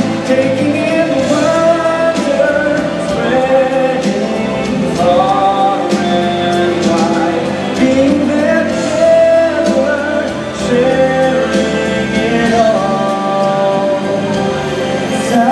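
Music with singing, a show song played loud over the stadium's loudspeakers.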